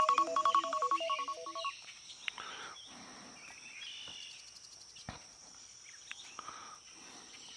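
Phone alarm playing a melody of quick stepped electronic notes that stops a little under two seconds in. Then faint outdoor ambience with a steady high insect drone and a few light knocks.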